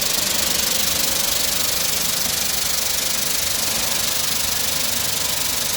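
URM-75 industrial continuous nut roasting machine running: a steady, even hiss that holds unchanged throughout.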